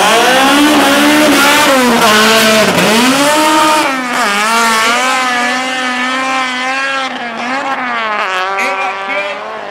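Two drag-racing cars launching from a standing start, tyres squealing and engines revving hard. The engine pitch climbs, drops at gear changes about three and four seconds in, climbs again, and then grows fainter as the cars pull away.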